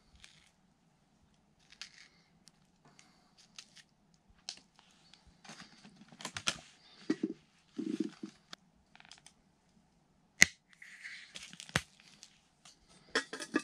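Scattered clicks, taps and rustles of hand food preparation: a small knife cutting strawberries and plastic berry clamshells being handled. A single sharp click about ten seconds in is the loudest sound.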